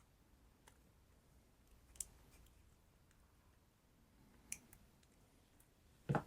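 A few faint, separate clicks of small hand tools being handled and set against the work surface, with one louder knock near the end.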